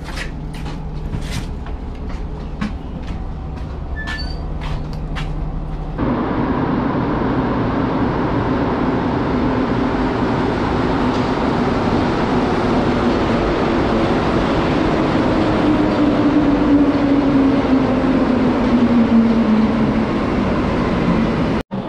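For about six seconds, the inside of a city bus: a steady engine hum with scattered clicks and rattles. Then a rubber-tyred Montreal Metro train runs in along the platform with a loud, steady running noise and a whine that falls slowly in pitch as it slows.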